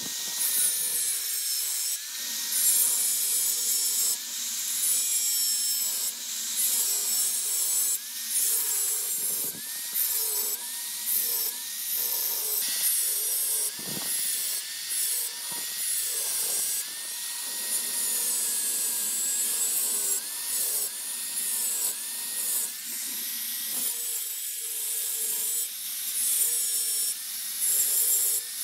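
Rapid, repeated scraping or rubbing strokes, uneven in loudness, with a faint tone that dips and rises again and again.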